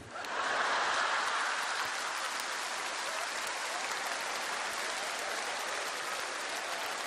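Large seated audience applauding, loudest in the first couple of seconds and then steady.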